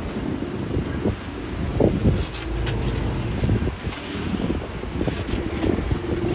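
Street traffic: vehicles passing with a steady low rumble, and a few short clicks and clatters on top.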